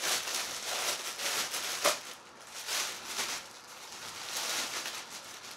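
Crinkling and rustling as packaging is undone, coming in irregular bursts, with one sharp click a little under two seconds in.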